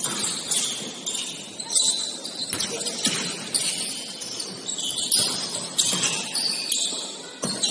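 Basketball shoes squeaking on a hardwood gym floor during play: many short, high-pitched squeaks in quick, irregular succession, with a few short knocks.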